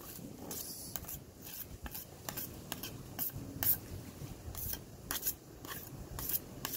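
Metal putty knives scraping wood putty off one another in a series of short, sharp, irregular strokes.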